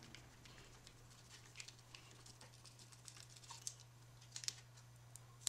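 Near silence: faint, scattered small clicks and taps from fingertips and a thin wooden stick working vinyl decal transfer tape against a wooden board, over a steady low hum.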